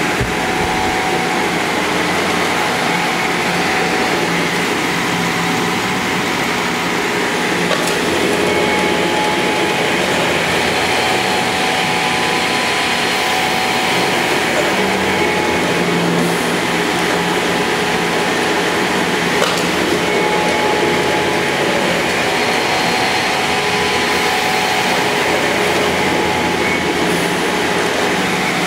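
CTD N80 13-inch double miter saw running steadily, its two 2-horsepower Baldor saw-duty motors and blades spinning with a smooth, even whir and a few steady tones. No cuts are heard; the machine is very smooth running.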